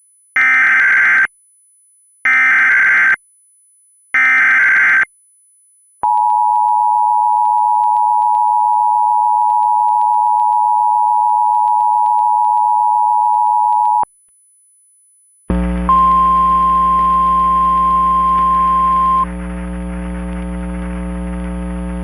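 EAS alert: three short screeching SAME header data bursts about two seconds apart, then the steady two-tone EAS attention signal held for about eight seconds. After a short pause a steady low buzz starts, with a higher steady tone over its first few seconds.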